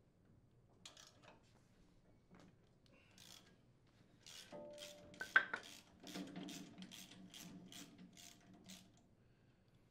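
Faint socket ratchet working an impeller removal tool, a run of short rasping strokes about three a second, as the tool presses the chipper shredder's impeller off the engine shaft. There is one sharp metallic clink about halfway through.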